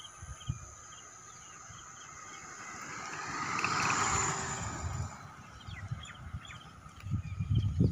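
Small birds chirping throughout, with the rush of a vehicle passing close by that swells to a peak about four seconds in and then fades.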